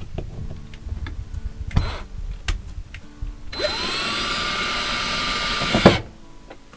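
A few handling clicks and taps, then about three and a half seconds in a Black & Decker cordless drill spins up with a quick rising whine. It runs steadily for about two and a half seconds, driving a screw through the metal mount plate into the camper wall, and stops with a sharp knock.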